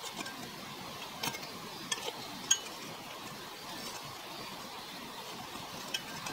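Stainless steel tongs clinking against small Lodge cast-iron skillets as a baked bun is lifted out. There are about five light clinks, the loudest about two and a half seconds in, over a steady faint background hiss.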